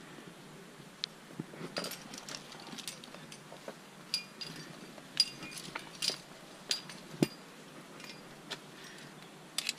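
Climbing gear clinking: metal carabiners and cams on the harness rack knock together irregularly as the climber moves. There are a dozen or so separate clinks, some ringing briefly, with a couple of louder ones about midway.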